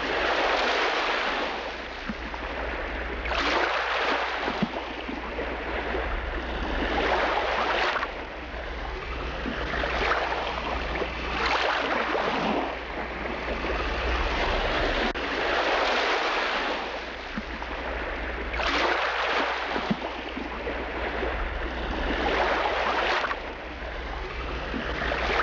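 Strong wind buffeting the microphone over lake water, a rushing noise that swells in gusts every three to four seconds over a constant low rumble.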